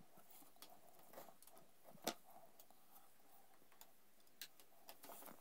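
Faint, scattered clicks and light taps from hands handling steel-braided brake lines at their fittings, the loudest about two seconds in.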